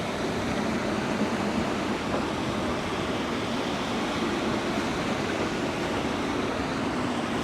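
Steady rush of wind and rain noise, with a tram rolling slowly past along flooded tram tracks without a splash.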